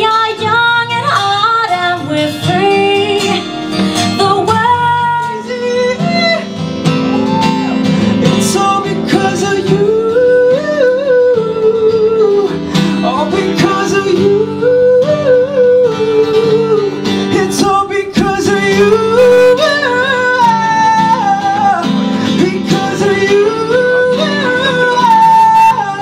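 Live acoustic pop performance: singing over acoustic guitar accompaniment. A woman's voice carries the melody at first, and from about six seconds in a man's lower voice sings over the guitar.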